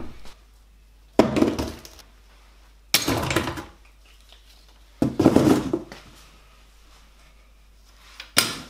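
Metal car parts dropped into a cardboard box four times at uneven intervals, each drop a sudden knock and clatter that dies away within about half a second.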